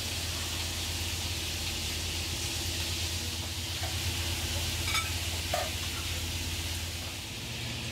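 Steady low hum and even hiss of the fishing cutter's engine and machinery below deck, with a couple of light clinks of cutlery on plates about five seconds in.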